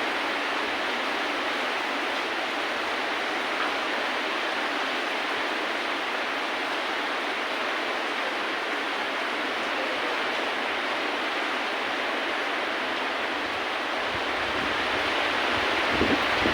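Recorded rain making a steady, even hiss, with a low rumble creeping in near the end.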